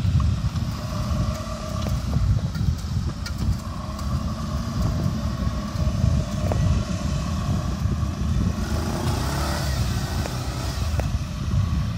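Quad bike (ATV) engines running, over a heavy, uneven low rumble.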